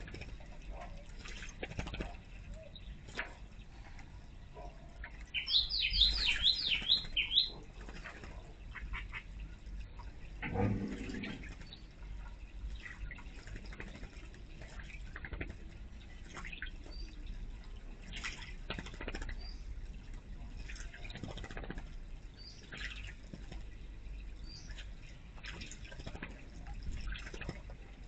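Bird-bath fountain water trickling steadily, with frequent small splashes from a bird bathing in the basin. A bird calls a quick run of high, rising whistled notes about five seconds in, the loudest sound here. There is a brief low sound about ten seconds in.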